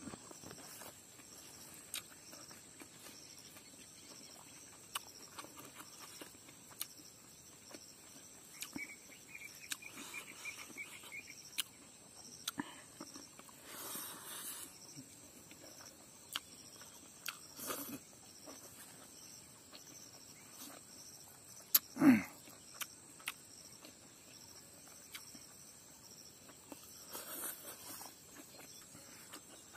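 Insects chirring steadily in a rural field, with small scattered clicks and smacks of someone eating by hand. A short even trill comes about a third of the way in, and a single loud call falls sharply in pitch about three quarters of the way through.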